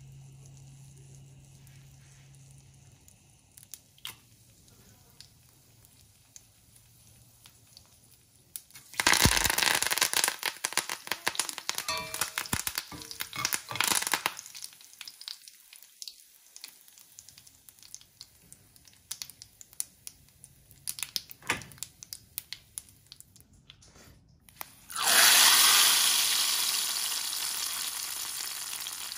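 Tadka frying in hot oil in a cast-iron skillet: faint pops of mustard seeds at first, then a sudden loud sizzle and crackle about nine seconds in as curry leaves and dried red chillies hit the oil, settling into scattered spits. About four seconds before the end, a second sudden loud sizzle as the hot tempering is poured onto the cooked dal, slowly fading.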